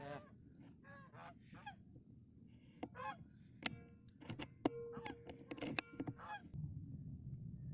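Geese honking in a rapid run of short calls, mixed with several sharp clicks, two of them followed by a brief ringing tone. The calls stop about six and a half seconds in, and a low rumble takes over.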